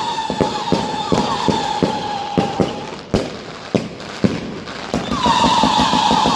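Katan Special #4, a 100-shot 25 mm firework compound, firing a rapid string of bangs at about four a second over a steady high whistling tone. The shots thin to a few scattered bangs midway, then come denser again with the whistle louder near the end.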